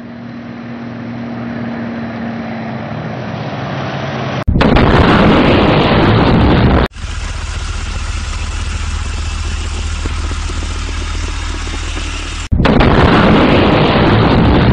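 Battle sound effects: a rumble swelling up, then loud explosion noise about four and a half seconds in and again near the end, with a steady engine-like drone between them. Each part starts and stops abruptly, as spliced clips do.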